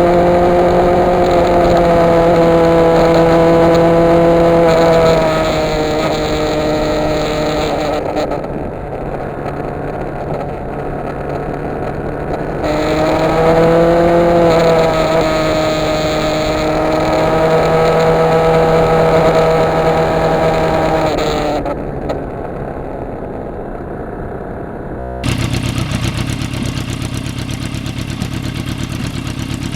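Yamaha FZR sport bike's inline-four engine running at a steady road speed with wind rushing past. The rider eases off the throttle about eight seconds in and opens it again a few seconds later. Near the end the sound changes abruptly to a lower, rougher engine note.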